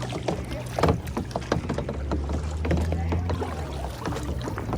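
Kayak paddles dipping and splashing in the water, with irregular sharp splashes and knocks over a low steady rumble that swells for a second or so in the middle.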